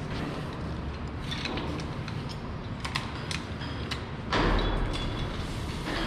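Metal clicks and rattles of rope-rescue hardware: carabiners, pulleys and a rope clutch being handled. About four seconds in comes a louder rush of rope pulled through the pulleys for about a second and a half, as the 3-to-1 haul system is reset.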